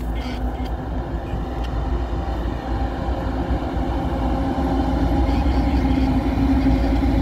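Two CN diesel-electric locomotives running light, their engines drone with a low rumble and a steady hum that grows louder as they draw near and pass.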